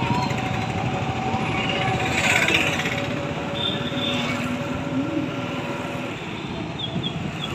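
Street traffic heard from a moving car: a steady rumble of engines and tyres, with a louder swell about two seconds in as a vehicle passes.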